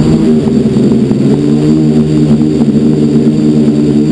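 FPV quadcopter's electric motors and propellers whining at close range as the quad lifts off and climbs, heard from its onboard camera. The pitch holds fairly steady, wavering slightly with throttle.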